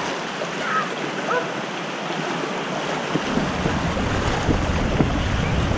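Shallow surf and stream water washing around the legs at the water's edge, with wind rumbling on the microphone from about three seconds in and feet splashing as he wades through ankle-deep water in the second half.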